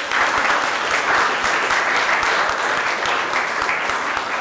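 Applause in a hall: many hands clapping together in a dense, steady patter.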